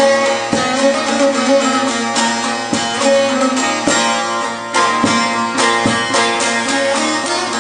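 Bağlama (long-necked Turkish saz) played solo, a continuous instrumental melody of quickly plucked notes with strong accented strokes.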